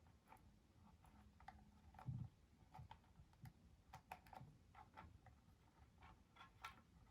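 Faint, irregular light clicks and taps, more than a dozen spread unevenly, with a soft low thud about two seconds in.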